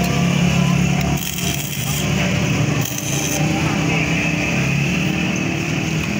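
Arc (stick) welding on a motorcycle's kick-start lever, welding it to its shaft: a steady low welder hum under the arc's crackle, with two stronger bursts of crackling about a second in and about three seconds in.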